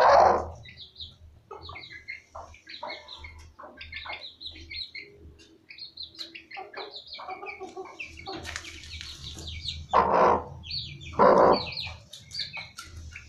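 Broody black Aseel hen sitting on eggs, giving three loud, harsh calls: one right at the start and two close together near the end, the defensive sound of a sitting hen disturbed at the nest. Short high chirps patter on and off throughout.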